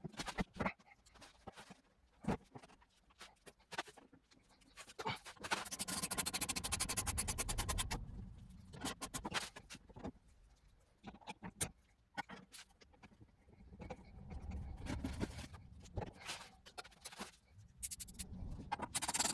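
Hand tools and parts being worked inside a Peugeot 508 door shell during a window regulator repair: scattered clicks and knocks, with a run of rapid, even clicking over a low rumble for about two seconds some six seconds in, and a fainter rumble with clicks later.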